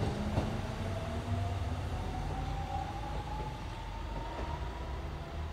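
A single-car Fukui Railway tram pulling away. Its motor whine rises steadily in pitch as it gathers speed over a low rumble of wheels on rail, with a single click about half a second in.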